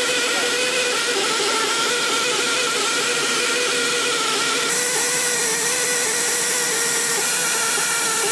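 Powered 20mm ammunition loader running steadily as rounds are fed into the F-15's gun: a loud mechanical whine over a hiss, growing brighter about halfway through.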